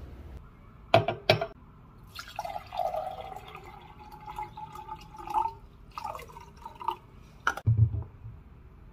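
Water poured from a plastic jug into a tall drinking glass, its tone rising as the glass fills. Two sharp knocks come just before the pour, and another knock comes near the end.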